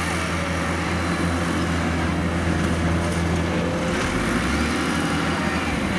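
Heavy farm machine's diesel engine running steadily under load, its note dropping slightly about four seconds in.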